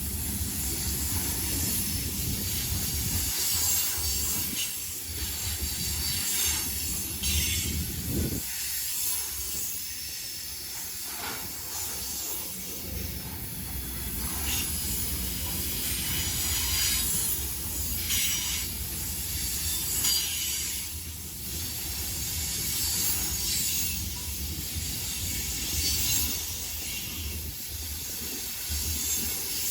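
Freight train rolling past: a steady low rumble of the cars with a high hiss from the steel wheels on the rails. The low rumble thins out for a few seconds about eight seconds in.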